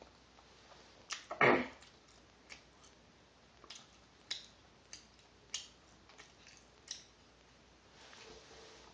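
Close-up drinking sounds of cola being gulped down: one louder, knock-like gulp about a second and a half in, then a string of sharp wet clicks roughly every half second.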